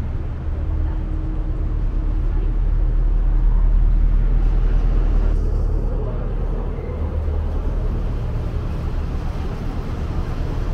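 Sightseeing boat's engine running with a steady low drone, heard on board, under a rushing hiss that thins out about five seconds in.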